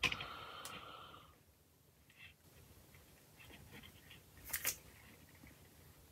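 Plastic model kit parts handled and pressed together by gloved fingers: a brief squeak right at the start, scattered faint ticks, then two sharp clicks close together about four and a half seconds in as the parts seat.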